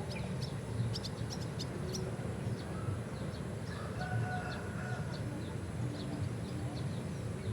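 Birds calling: short high chirps repeat throughout, and a held call of about a second comes about four seconds in, over a steady low rumble.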